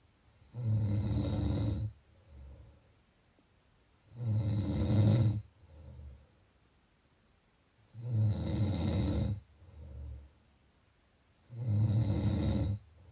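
A person snoring in a slow, regular rhythm: four loud, rattling snores about three and a half seconds apart, each followed by a shorter, softer sound.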